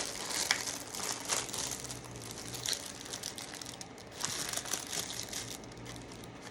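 Plastic snack packaging crinkling as it is handled, in irregular bursts of crackles, thickest at the start and again about four seconds in.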